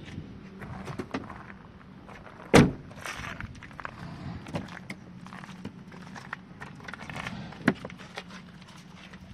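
A car door on a Toyota Innova Crysta slams shut with a loud thunk about two and a half seconds in, with footsteps crunching on gravel around it. A second, smaller sharp knock comes near the end.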